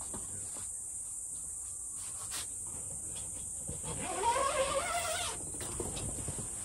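Steady high-pitched chirring of insects, like crickets. About four seconds in, a person hums briefly on a rising note.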